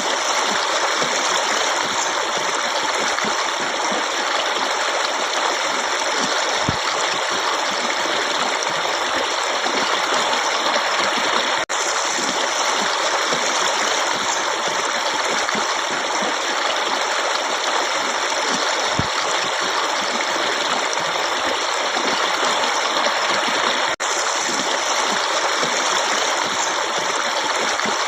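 Forest stream of running water, flowing steadily in an even rush with no let-up; the level dips for an instant twice.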